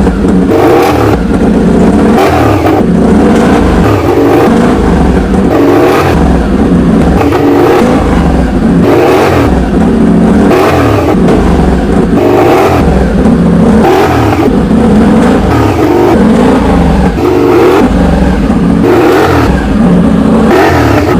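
MotoGP racing motorcycle engine, very loud, revving up and down over and over, about once a second.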